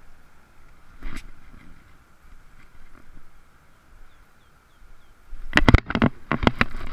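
Loud, irregular knocking and rustling of handling noise near the end, as a baitcasting rod is cast with the reel held up close to the microphone. Earlier there is a faint steady high hum, a single click about a second in, and a few short bird chirps past the middle.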